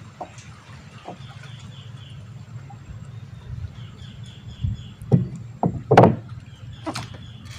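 A few knocks and bumps on a small wooden boat in the second half, the loudest about six seconds in, over a steady low rumble. A faint repeated high chirp comes and goes.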